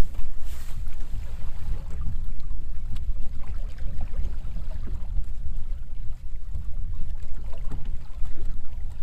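Gusty wind rumbling on the microphone, a heavy irregular low rumble, over river water moving against the boat's hull, with a few light ticks.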